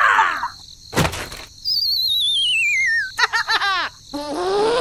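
Cartoon-style sound effects: a short squeak, then a knock about a second in. A wobbling whistle falls steadily in pitch, followed by two quick runs of high squeaky chirping, the second rising in pitch near the end.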